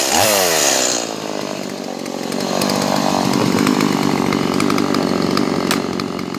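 Stihl MS180 two-stroke chainsaw: one last brief rev that drops away within the first second as the throttle is released, then idling steadily.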